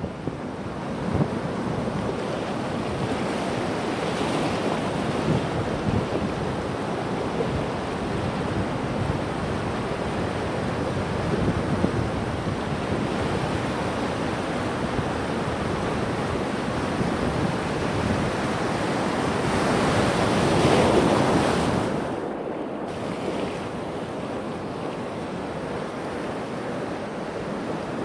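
Ocean surf breaking and washing through the shallows, with wind on the microphone. The wash swells louder about three-quarters of the way through and then falls back.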